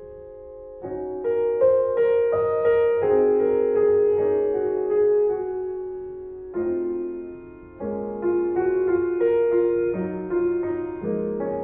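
Slow, gentle solo piano music: single notes and chords strike and fade away, starting after a brief pause about a second in.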